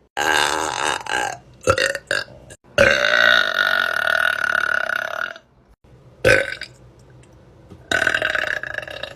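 A person burping again and again: a burp of about a second, a few short ones, then a long drawn-out burp of about two and a half seconds, a short one, and another long one starting near the end.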